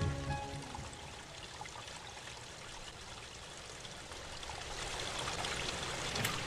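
Faint, steady rushing noise like running water, slowly growing louder over the last couple of seconds.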